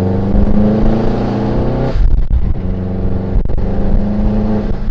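2019 Subaru WRX STI's turbocharged 2.5-litre flat-four pulling under hard acceleration, its note rising in pitch, with a short break for a gear change about two seconds in and another near the end.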